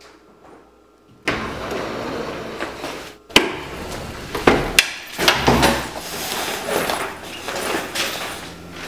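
A sliding glass door being unlatched and opened: a sharp click from the handle about three seconds in, then a run of knocks and rumbling as the door moves, followed by rustling and handling as a backpack is put down on a table.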